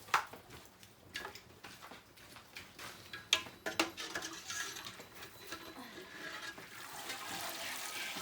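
A few sharp clinks and knocks of kitchen utensils, then a steady watery rush of hot liquid in a cooking pot that builds from about four seconds in.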